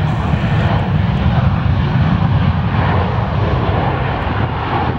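Jet engines of a twin-engine Delta Airbus A330 airliner running loud as it moves along the runway close by. The sound is a steady deep rumble with a rushing hiss, swelling through the middle and easing slightly near the end.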